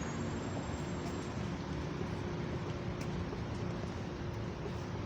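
Bus engine running, with a steady droning tone held at one pitch over the engine noise: the weird sound that only comes when the engine is on.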